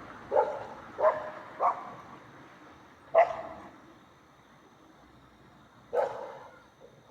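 A dog barking five times: three quick barks, a pause, a fourth bark, then one more a few seconds later.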